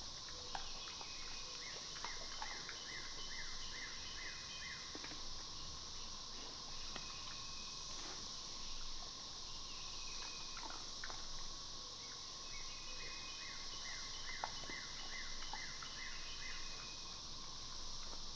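Outdoor insect chorus, a steady high buzz with a steady lower tone beneath it. A bird sings two runs of quick repeated falling chirps, one near the start and one about two thirds of the way through, with a few faint clicks scattered between.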